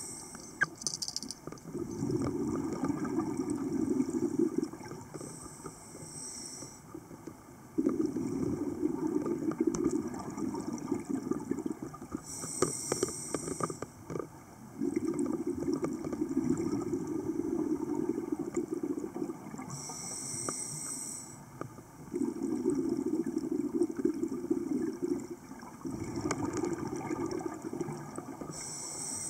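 Scuba diver breathing through a regulator underwater, in a slow regular cycle about every seven seconds: a short high hiss on each inhale, then a longer low rumble of exhaust bubbles on each exhale.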